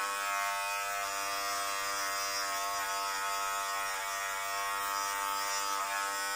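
Small electric hair clipper running steadily, a constant motor hum while it trims the hair at the sides of the head.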